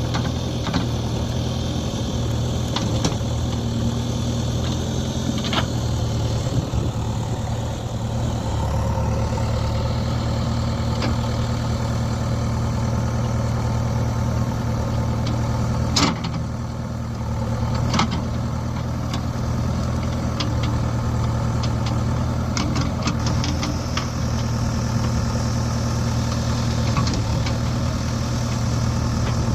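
Diesel engine of a JCB 3DX backhoe loader running steadily, with scattered sharp knocks, the loudest about sixteen and eighteen seconds in.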